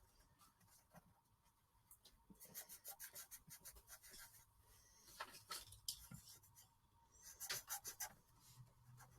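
Felt-tip marker colouring in on paper: faint, quick back-and-forth strokes in three short runs, with pauses between.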